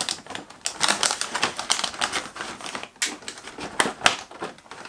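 Cardboard advent calendar and its plastic insert rustling and clicking in quick, irregular taps as a hand rummages in a compartment and pulls out a treat packet.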